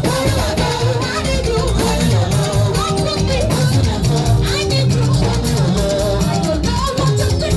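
Live band playing a danceable song, with bass, percussion and a singing voice over it.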